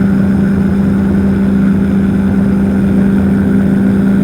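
Powered parachute's engine and propeller running at a steady cruise setting in level flight, a constant drone heard from on board.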